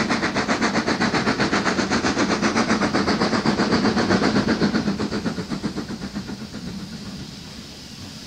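Steam locomotive working a train, its exhaust beats coming in a rapid, even rhythm that dies away from about five seconds in, leaving a fainter steady hiss.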